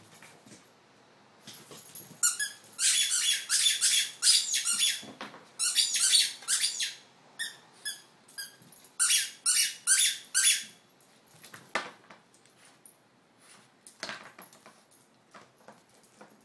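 French bulldog chewing a squeaky tennis ball: rapid shrill squeaks, about three or four a second, in two runs, the second shorter. A few light knocks follow near the end.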